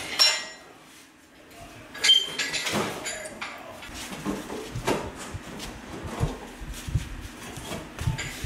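Irregular metallic clanks, knocks and rattles as an engine and transmission hanging by chain and straps from an engine hoist are worked out of the car's engine bay. A short lull about a second in, then knocks come every second or so.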